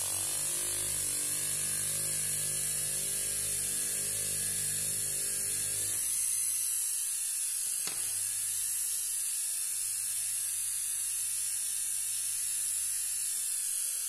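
Washing-machine universal motor running steadily under an external speed controller, a strip of wood pressed against its spinning shaft without pulling its speed down. About six seconds in the sound thins out as the load comes off, there is a click about two seconds later, and near the end the pitch falls slightly as the speed knob is turned.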